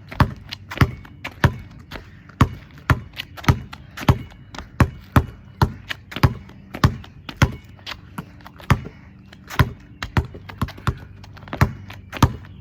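A steady run of sharp thuds, a little under two a second, as feet strike the floor in time with scissor kicks.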